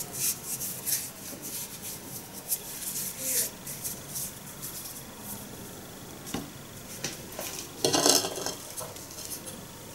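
Metal spoon scraping and knocking inside a metal pot while scooping sticky bean paste, loudest about eight seconds in. Between these, soft rubbing of floured hands rolling the paste into balls, with small clicks.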